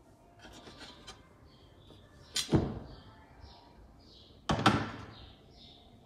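Two sharp plastic knocks about two seconds apart from a Beko washing-machine door assembly being handled, after some light rustling and clicking. Birds chirp faintly in the background.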